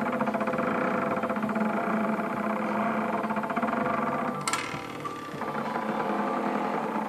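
Stepper motors of a homemade belt-driven CNC machine built from photocopier parts, whining in several pitched tones with a fast fluttering buzz as they drive the axes. A single sharp click with a brief ring comes about four and a half seconds in.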